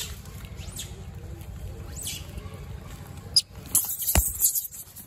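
Baby macaques squeaking as they scramble over corn kernels held in a hand, with short high squeals and then a loud burst of harsh shrieks about four seconds in. A low thump comes in the middle of the burst.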